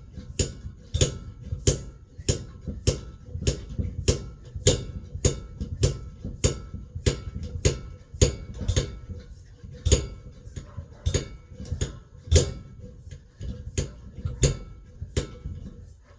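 Hand air pump worked in quick, even strokes, about three every two seconds, each with a click and a low thump, pressurising the fuel tank of a petrol stove.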